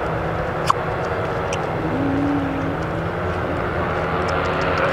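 Engines of a formation of powered paragliders (paramotors) droning steadily overhead. A single sharp click comes about a second in.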